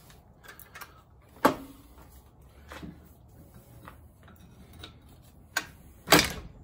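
Sharp metallic clinks and knocks of a hand tool working a stubborn bolt on an engine's accessory bracket, with fainter ticks between. The loudest clink comes about a second and a half in, and two more come close together near the end.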